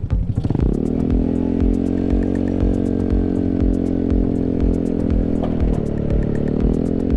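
Modified Honda Ruckus scooter's engine pulling away and rising in pitch over the first second, then running at a steady speed, with a slight drop about three-quarters of the way through.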